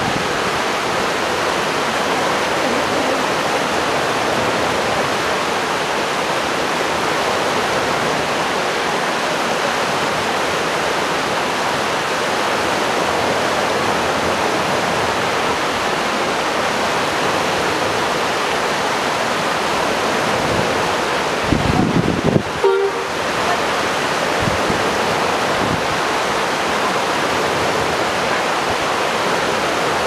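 Snowmelt stream babbling, a steady rush of running water. About two-thirds of the way through there is a brief low rumbling bump with a momentary dropout.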